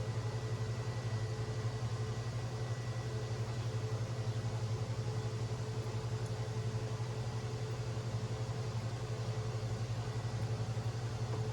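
Steady low mechanical hum with a fast even pulse and a faint higher whine, unchanging throughout.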